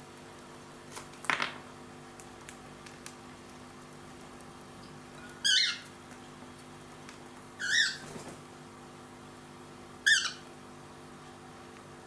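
Cockatiel calling: a falling call about a second and a half in, then three short, high chirps about two seconds apart.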